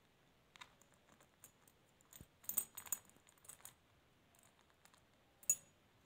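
Bunches of metal keys clinking and jangling as an Alexandrine parakeet picks at them with its beak: scattered light metallic clinks in short clusters, with the sharpest clink about half a second before the end.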